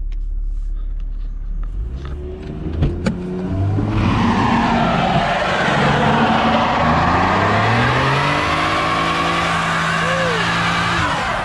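Toyota Mark II JZX100's straight-six idling, then revving up about two seconds in and held at high revs as the rear tyres spin and squeal in a smoky burnout with traction control switched off.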